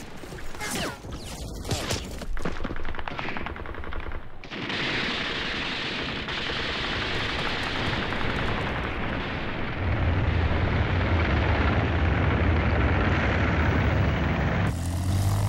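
Battle sound effects: rapid gunfire with machine-gun bursts and single shots cracking for the first few seconds, then a continuous din of fire, joined by a deep rumble from about ten seconds in.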